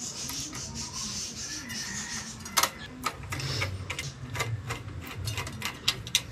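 Small screwdriver driving screws into the mounting bracket at the base of a Deepcool Gammaxx GTE V2 tower heatsink: light metallic clicks and ticks, irregular, a couple a second, starting about two and a half seconds in.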